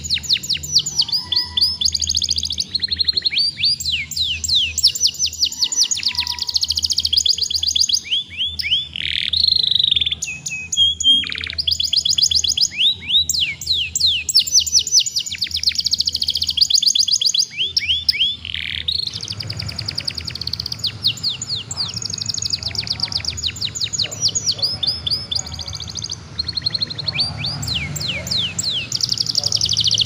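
Young domestic canary singing a long, nearly continuous song of fast trills and rolls, runs of rapid falling notes one after another; a juvenile that has come into full song. A steady low hum runs beneath, and a background hiss grows louder about two-thirds of the way through.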